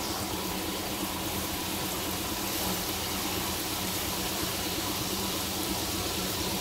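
Hot oil sizzling and bubbling steadily around spring rolls deep-frying in a pan.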